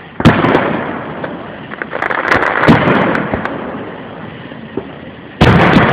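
Consumer fireworks going off: a sharp bang just after the start, a cluster of crackling pops about two to three seconds in, and another loud burst near the end.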